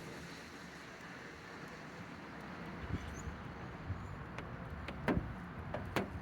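Outdoor ambience: a steady wash of distant traffic and wind, with a few short sharp knocks, one about three seconds in and two near the end.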